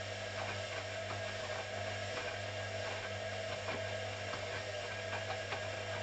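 Hoover CA232 front-loading washing machine tumbling its drum during the wash: a steady motor hum and whine with faint, irregular clicks and knocks from the turning drum.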